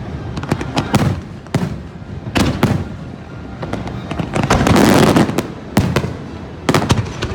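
Fireworks bursting in the air: a string of sharp, loud bangs at uneven intervals, with a longer, denser volley of bursts around the five-second mark.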